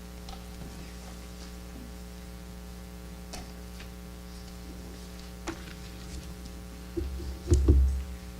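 Steady electrical mains hum with a few faint clicks, then a cluster of deep thumps and knocks near the end, louder than the hum.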